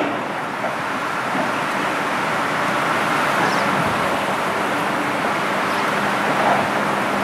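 Freight train cars rolling along the track: a steady rumble and hiss of steel wheels on the rails.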